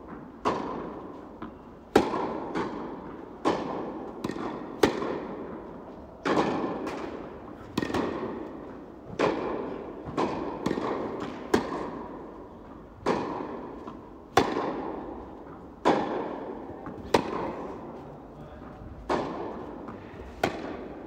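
Tennis balls struck by rackets and bouncing on an indoor court during a baseline rally: a run of sharp pops, about one every second or so, each ringing on in the hall's echo.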